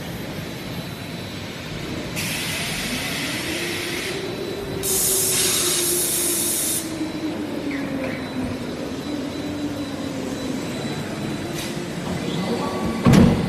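Automated forging line machinery running with a steady drone and a slowly wavering hum. About two and five seconds in come two long, loud hissing blasts, and near the end a single heavy bang.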